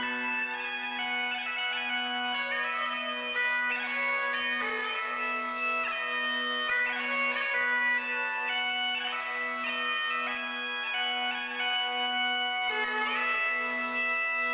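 Bagpipes playing a melody over a steady drone.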